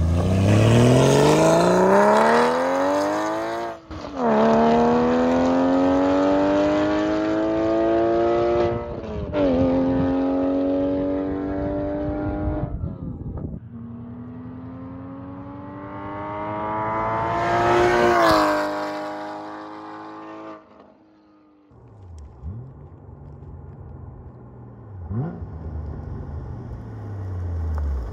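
Porsche 981 Cayman GT4's flat-six with catless headers and the exhaust valves open, accelerating hard: the revs climb steeply, drop sharply at each upshift, then climb again, peak, and fall away as it comes off the throttle. Near the end the engine is much quieter and lower.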